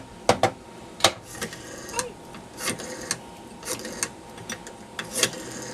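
Rotary telephone being handled: several sharp clicks, then a series of short whirring, clicking runs like the dial being turned and spinning back.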